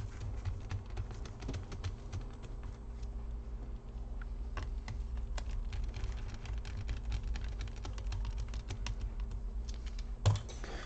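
Rapid small clicks and scrapes of a precision screwdriver driving small screws into a laptop's cooling fans, over a steady low hum, with one louder knock near the end.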